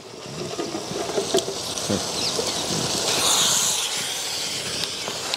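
Thick egg masala gravy sizzling and bubbling in a large pan with fried boiled eggs sitting in it. The hiss grows louder over the first few seconds, then holds.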